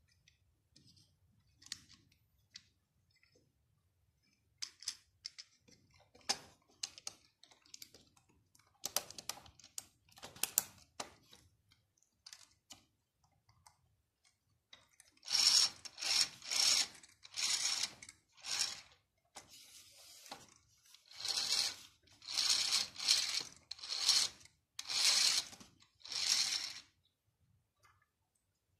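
Plastic LEGO Technic parts being handled and fitted together: scattered light clicks at first, then a run of about ten loud, short bursts of clicking and rattling plastic in the second half.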